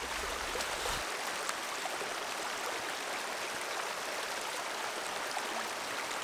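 Swollen shallow creek flowing steadily over its stony bed, with a few faint splashes of small dogs' paws wading through the water.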